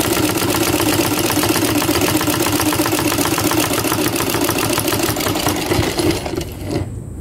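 Yamato ordinary sewing machine running at speed, stitching in a fast, even rhythm, then slowing and stopping about a second before the end. Its hook timing has just been reset, and it now sews without skipped stitches.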